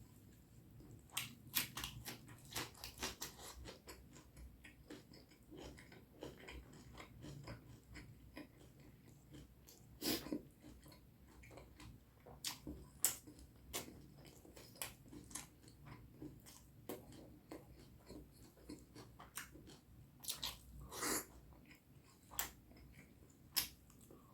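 Close-miked mouth sounds of a person eating curry and rice: chewing with many irregular wet clicks and smacks, and a few louder ones about ten seconds in and again near twenty-one seconds.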